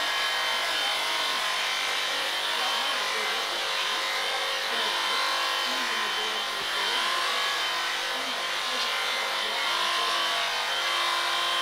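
Electric sheep-shearing handpiece running steadily with a constant motor whine as it cuts through a sheep's fleece.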